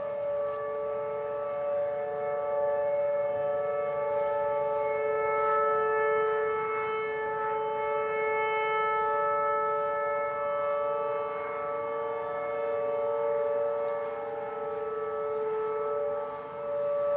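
Whelen Vortex outdoor warning siren sounding a steady two-note chord during a siren test, its loudness swelling and dipping slightly.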